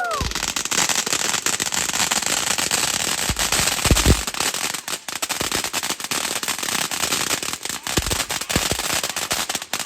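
Consumer fireworks going off: a dense, continuous fast crackling, with heavier bangs about four seconds in and again about eight seconds in.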